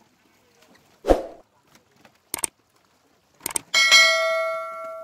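Subscribe-button animation sound effect: a short whoosh about a second in, two mouse clicks, then a bright notification-bell ding that rings out and fades over about a second and a half near the end.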